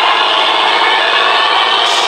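Engine running loudly and steadily through a growling exhaust.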